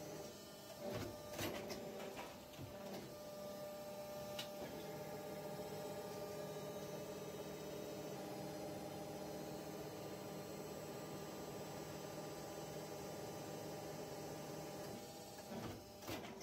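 Plastic injection molding machine for bottle caps running: a steady hum with several steady tones, broken by a few short clicks and knocks about a second in, once at about four seconds, and again near the end.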